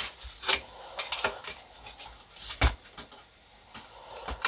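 Scattered clicks and light knocks of parts being handled and shifted inside a small PC case, with the sharpest click near the end.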